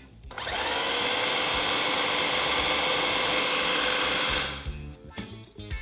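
Electric food processor motor spinning up and running steadily for about four seconds, grinding minced lamb, onion, garlic and milk-soaked bread into a kofta paste. It winds down near the end, and background music is left.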